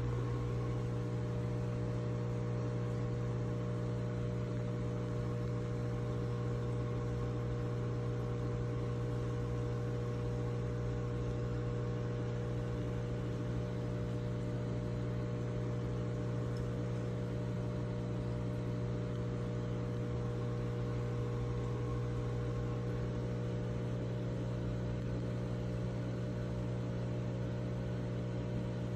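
Aquarium pump running, a low steady hum that does not change.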